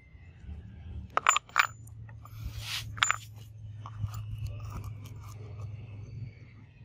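Small cut-steel pieces set down on a wooden board: a few sharp metallic clinks about a second in, a brief scrape, and another clink near three seconds. A low steady hum runs underneath.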